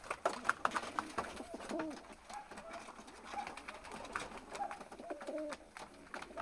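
Several Jacobin pigeons cooing over and over, in short rising-and-falling notes, with a few sharp clicks in the first couple of seconds.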